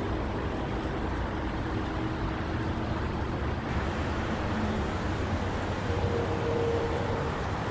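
Steady low rumble of outdoor background noise, like distant road traffic, with a faint hum that rises a little in pitch near the end.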